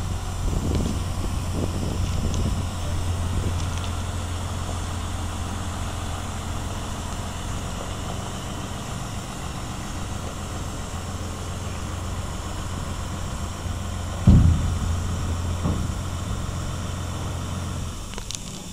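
Tractor's diesel engine running steadily as it tows a tandem-axle trailer over gravel, with one short loud thump about fourteen seconds in.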